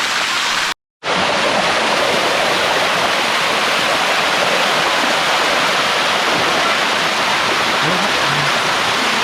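Steady rush of water pouring over the rocky steps of a cascading waterfall. The sound cuts out completely for a moment just under a second in, then resumes as before.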